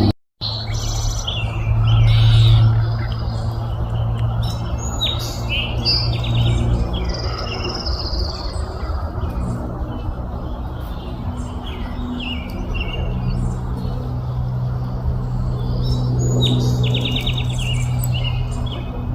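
Small songbirds chirping and twittering in many short calls and trills, over a steady low hum.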